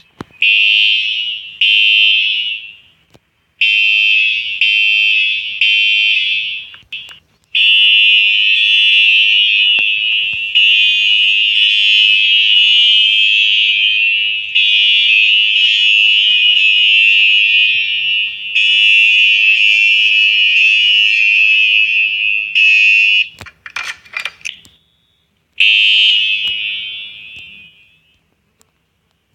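Siemens fire alarm sounding a loud, high-pitched tone. It first comes in about five short blasts, each roughly a second long, then sounds steadily for about fifteen seconds with a few brief breaks. After a short crackle it gives one last blast that fades away.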